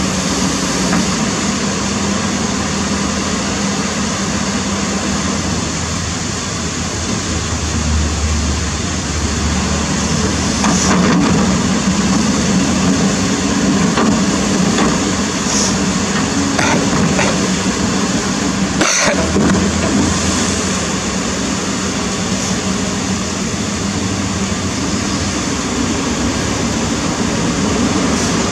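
Kobelco SK200 excavator's diesel engine running steadily under load as the bucket works in a rushing, stony river, with the rush of water and a few brief knocks.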